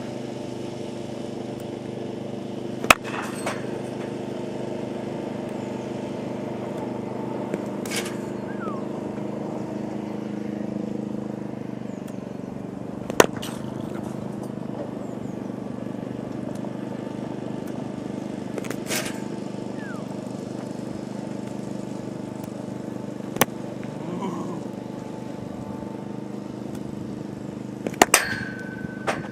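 Cricket ball struck by a bat in net practice: a sharp crack about every five seconds, six in all, over a steady motor hum. A high tone rings on after the last crack near the end.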